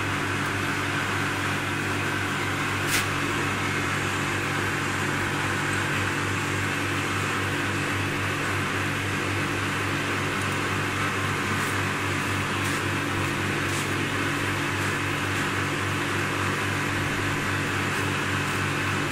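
A steady, low machine hum, even and unchanging, with one sharp click about three seconds in.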